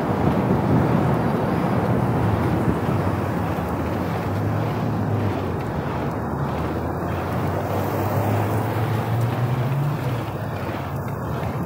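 Steady wind rush on the microphone of a moving bicycle, over the low hum of road traffic.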